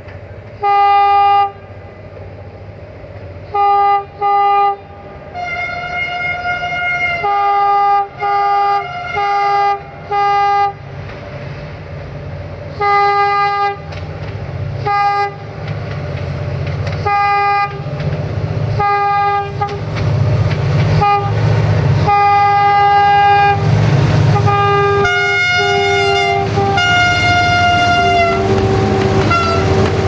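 Diesel locomotive horns on a double-headed Romanian train (LDH1500 diesel-hydraulic and GM/EGM 'Jimmy') sounding a long run of loud toots as it approaches: single short blasts, quick pairs and longer two-tone chords. Under the horns the locomotives' diesel engines rumble louder and louder as the train draws near and passes.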